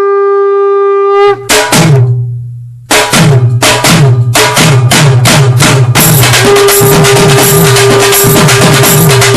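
An electronic dance ringtone track starting: one held note opens it, then drum hits and a deep bass come in, and a steady fast beat with the full track runs from about six seconds in.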